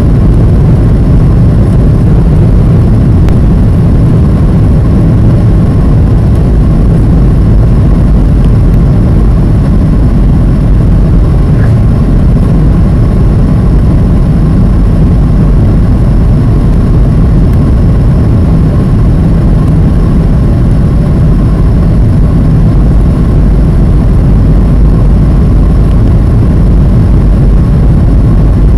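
Steady loud cabin roar of a Boeing 737 on its descent to land, heard from a seat over the wing: engine noise and rushing air with a faint steady whine above it.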